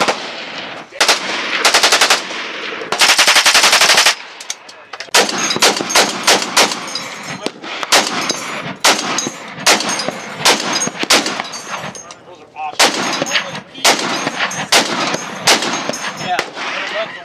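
Automatic gunfire: fast bursts in the first four seconds, the last a very rapid stream of shots, then from about five seconds in a belt-fed heavy machine gun firing a long series of heavy shots a few per second.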